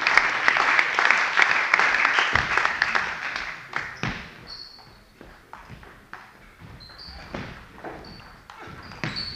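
Spectators clapping after a table tennis point, fading out over about three seconds. Then the sharp clicks of the celluloid ball off bats and table in the next rally, with a few short high squeaks.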